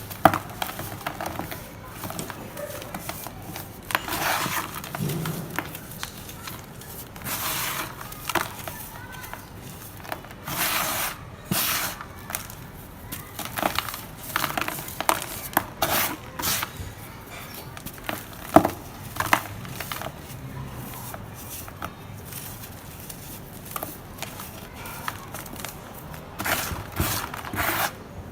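Dry red dirt chunks crumbling into powder: crunchy crackles and short gritty rushes coming in irregular bursts, with brief pauses between them.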